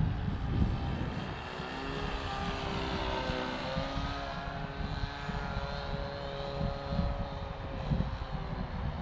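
Nitro glow engine of a Nexstar Select RC trainer plane in flight, heard from the ground. Its note shifts up and down in pitch as the plane flies. A low, uneven rumbling noise runs underneath.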